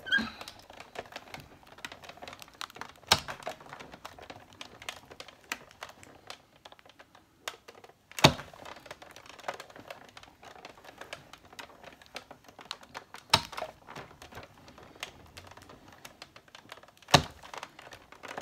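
Sizzix Big Shot die-cutting machine being hand-cranked, making a stream of small clicks and creaks with a sharp crack about every five seconds. The plates are being run through several times to cut two layers of paper.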